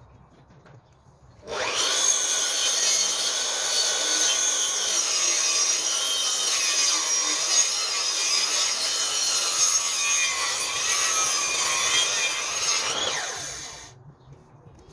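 Makita sliding compound mitre saw starting up and cutting through a thick timber sleeper, its motor's pitch wavering as the blade works through the wood. Near the end the pitch falls as the saw winds down and stops.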